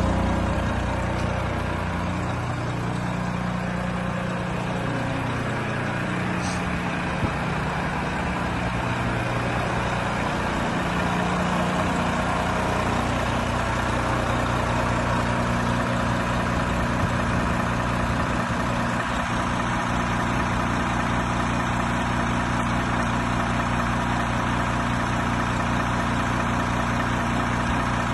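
Renault T 460 truck's 11-litre straight-six diesel idling steadily.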